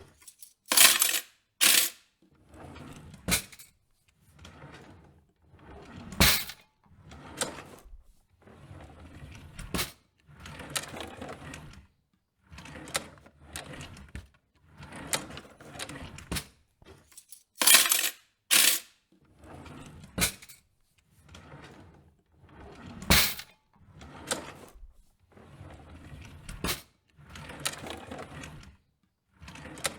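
A cutlery drawer opened and shut over and over: the drawer's runners slide, and metal cutlery clatters inside it. Sharp clicks and bangs come as it stops or shuts, the loudest several times through.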